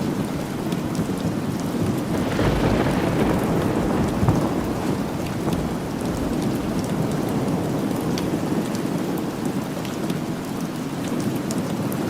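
Steady rain falling, with a low rumble of thunder swelling about two seconds in and dying away over the next few seconds.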